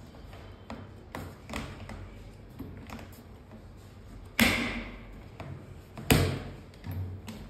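Plastic base plate being pressed onto a folding shopping trolley's metal frame: light taps and knocks, then two loud snaps about four and a half and six seconds in as it is fixed onto the sides of the frame.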